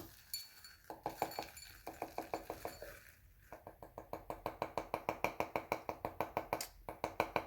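Burst composition being shaken and tapped out of a firework canister shell into a container: quick clinking taps, several a second, in runs broken by short pauses.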